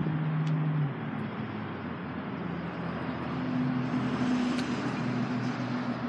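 Steady motor-vehicle engine hum mixed with traffic noise; the low hum shifts in pitch about a second in and again around three seconds.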